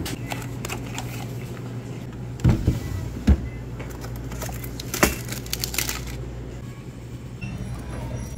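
Plastic food packaging and sealed plastic ice cups being handled, with a few knocks and clicks, over a steady low hum.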